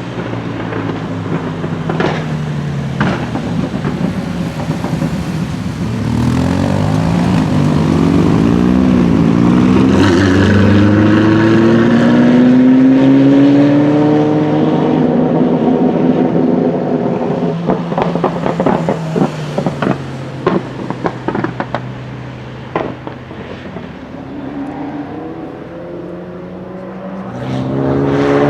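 Ferrari F40 twin-turbo V8 accelerating, its engine note climbing in pitch through the revs and then easing off. Around the middle the exhaust pops and crackles on the overrun with a string of sharp cracks. Near the end the engine climbs again under acceleration.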